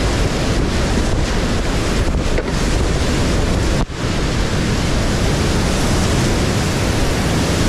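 Loud, steady rush of a whitewater rapid, heard from a kayak running it, with water splashing over the boat. It drops out for an instant about halfway through.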